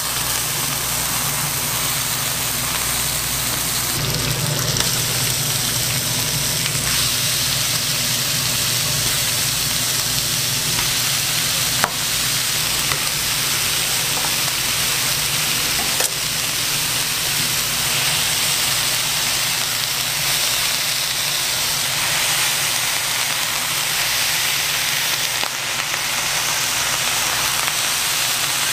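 Bacon, fried eggs and smashed beef patties sizzling steadily on a flat-top griddle, an even hiss with a low steady hum underneath. Two sharp clicks cut through it, about 12 and 16 seconds in.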